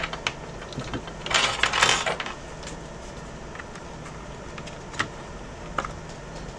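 Handling noise from a power cord being plugged into an opened Xbox One S: a short scraping rustle a little over a second in and a few light clicks, over a faint steady hum.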